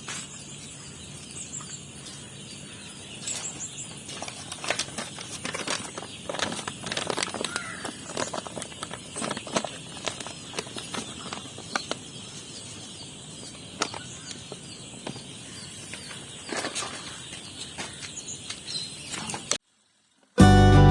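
Rustling and fluttering of young broiler chicks in their shed, mixed with irregular small knocks and clatters from handling. The sound cuts off suddenly near the end.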